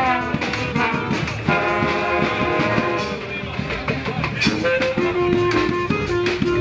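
Brass band playing Balkan-style brass music: trombones and tuba in held and moving notes, with regular percussion hits.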